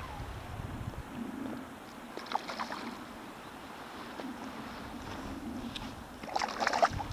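Shallow sea water splashing around a wading angler's hand and arm: a short splash about two seconds in and a louder one near the end, with low water sloshing between.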